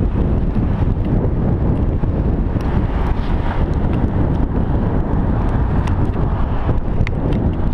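Wind rushing over the microphone of a camera held out of a moving car's window, over steady road and car noise. A few faint clicks stand out now and then.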